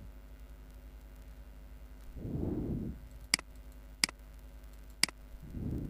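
Three sharp computer mouse clicks, the second about a second after the first and the third a second later. There are two soft low rushes of noise, one before the clicks and one just after them, over a faint steady hum.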